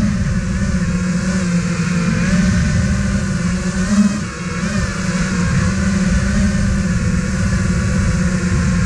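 Brushless motors and propellers of an iFlight Nazgul 5 FPV quadcopter, heard from the onboard GoPro, buzzing steadily with a pitch that wavers as the throttle changes. About four seconds in there is a short burst of throttle, then a brief drop in level.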